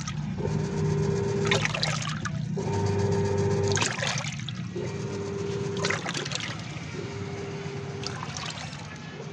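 Intex 6 kg semi-automatic top-loading washing machine on its wash cycle: the wash motor hums for about a second at a time, with water sloshing and swishing each time it stops and reverses, every couple of seconds. The machine sounds normal, with no abnormal noise.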